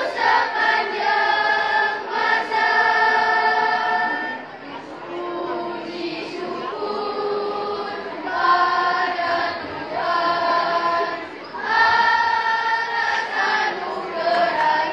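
A school choir singing in harmony, holding notes in phrases a few seconds long. It grows softer for a few seconds partway through, then swells again.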